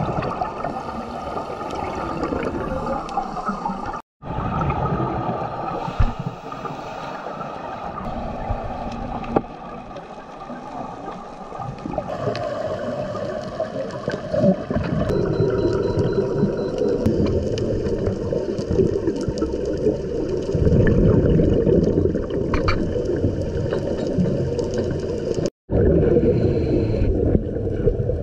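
Muffled underwater sound picked up by a camera in a waterproof housing: a low rumble with bubbling from scuba divers' exhaled air, getting louder in the second half. It cuts out completely twice for a moment.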